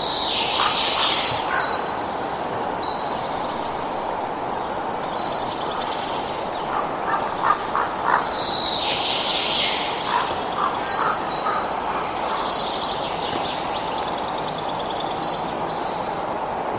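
Several birds calling and chirping, with a falling call near the start and again about halfway through, and short lower calls in between, over a steady rushing background noise.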